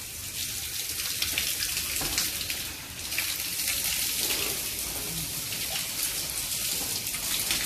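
Water running from wall-mounted washing taps and splashing as people wash at them: a steady hiss with small irregular splashes.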